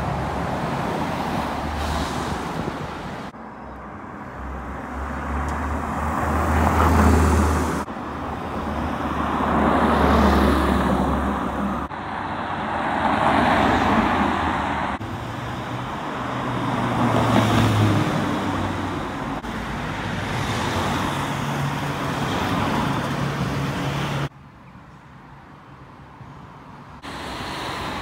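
A run of short roadside recordings of cars driving past and pulling away, cut one after another. Each engine note swells up and fades. About a third of the way in, a Porsche 991 GT3's naturally aspirated flat-six accelerates away. Near the end comes a short quieter stretch.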